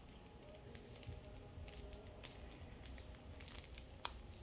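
Faint crinkling and small clicks of packaging being handled and torn open with the teeth, with one sharp click about four seconds in.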